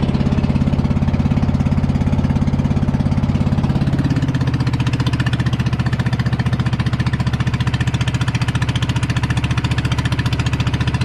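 A combustion engine running steadily with a fast, even chugging pulse; its note shifts slightly about four seconds in.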